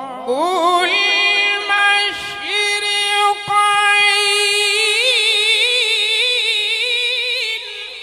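A man's high voice reciting the Quran in melodic tajweed style, drawing one phrase out into long held notes with ornamented turns and a strong vibrato in the later part, fading near the end.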